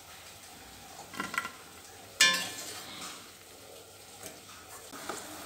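Metal slotted spoon clinking against cookware while fried balls are lifted out of the oil: two light clinks about a second in, then a sharper ringing clink just after two seconds. Faint oil sizzle underneath.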